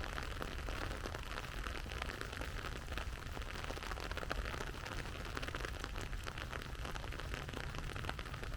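Steady rain falling, a dense patter of small drop ticks over an even hiss, with a low rumble underneath.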